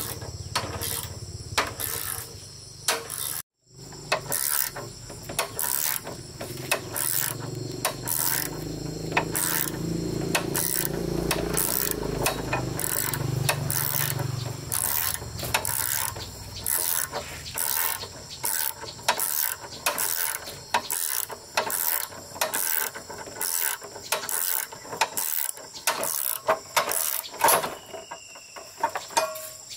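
Irregular sharp mechanical clicks and clanks, one or two a second, with a low rumble underneath for several seconds in the middle; the sound cuts out completely for a moment about three and a half seconds in.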